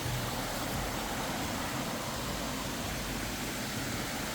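Steady rush of water from a small creek waterfall.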